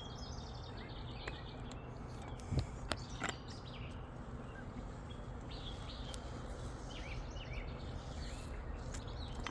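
Birds chirping in short scattered calls over a steady low background noise, with three sharp knocks close together a little under three seconds in.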